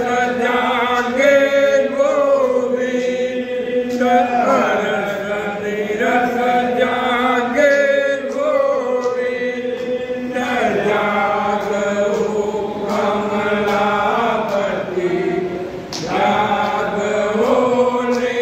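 A group of devotees chanting together in a sung, melodic devotional chant. Many voices hold and glide between notes without a break.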